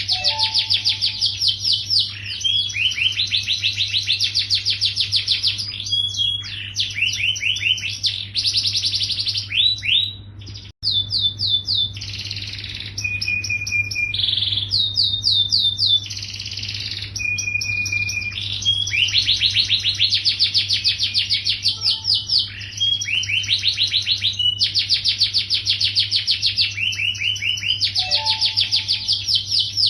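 Yellow domestic canary singing continuously in rapid rolling trills and runs of repeated notes, with a brief gap about eleven seconds in.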